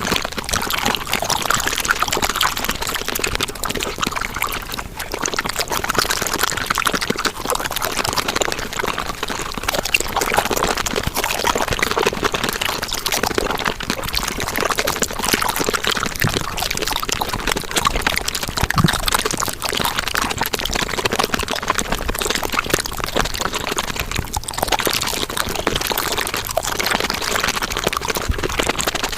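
Mukbang eating sounds sped up about five times: a dense, continuous crackle of chewing and mouth noises, with no pauses.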